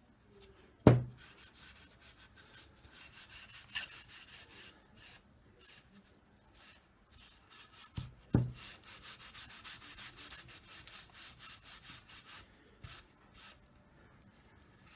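A cloth rubbing antique wax into the edges of an oak board in quick back-and-forth strokes. A sharp knock about a second in, the loudest sound, and two more knocks about eight seconds in.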